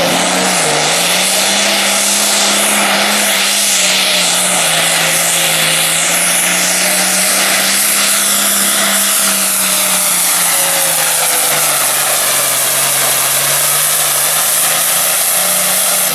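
Turbocharged International 1086 pulling tractor's diesel engine running flat out under full load while dragging the weight sled, with a loud high hiss above the engine note. The revs dip briefly about half a second in and sag somewhat toward the end of the pull.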